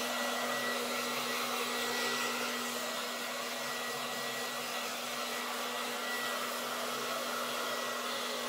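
Handheld hair dryer running steadily, blowing air through long wet hair: an even rush of air over a steady low motor hum.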